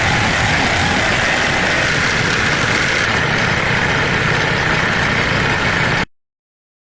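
Steady mechanical running noise, like a motor or engine, with a low rumble; it cuts off suddenly about six seconds in.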